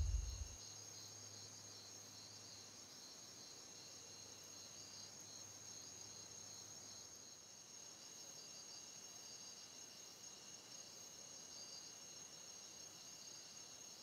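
Faint, steady chirping of crickets, a constant high trill with a slight pulse. A low boom fades out in the first half-second.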